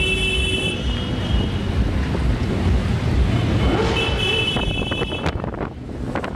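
Several motorcycles riding past slowly, their engines running in a low, continuous rumble, with wind buffeting the microphone. A high steady tone sounds twice, near the start and about four seconds in.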